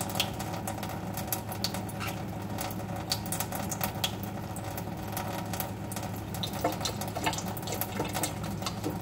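Green-cheeked conure splashing in bath water, a rapid irregular patter of small splashes and flicks from its flapping wings and shaking, over a steady low hum.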